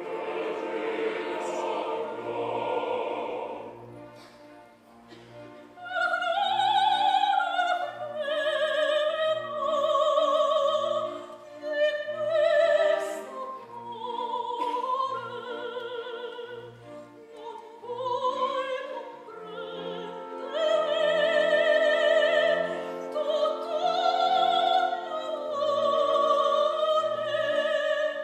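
Operatic soprano singing a slow line with wide vibrato over orchestral accompaniment, with evenly repeated low bass notes beneath. It opens with a loud full orchestral chord that fades over the first few seconds before the voice enters.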